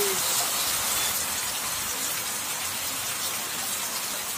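Heavy rain pouring steadily onto a flooded road and standing water: a dense, even hiss.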